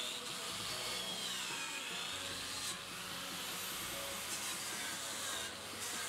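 Handheld electric power tool running on steel, a steady rushing noise with a whine that wavers up and down in pitch as the load changes.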